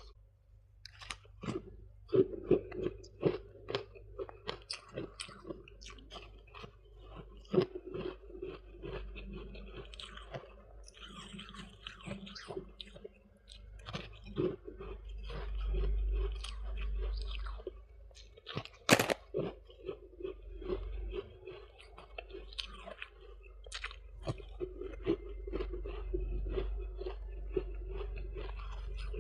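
Close-up crunching of someone biting and chewing soft freezer frost, a steady run of crisp crunches with one sharp, loud bite about two-thirds of the way through.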